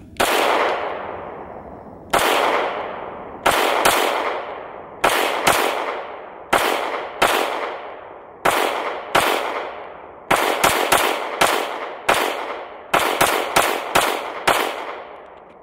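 About twenty pistol shots from a Staccato C2 as a full 20-round magazine is fired, some singly and some in quick pairs and triples, each followed by a fading echo. The gun cycles through the whole magazine without a jam.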